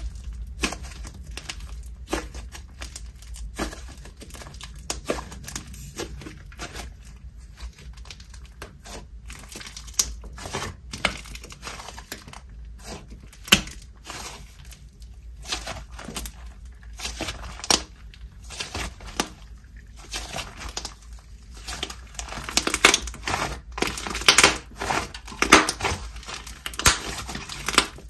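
Dense frosting-texture slime squished, folded and pressed by hand, giving off a steady stream of short, crisp air-bubble pops and crackles. The pops grow denser and louder over the last several seconds.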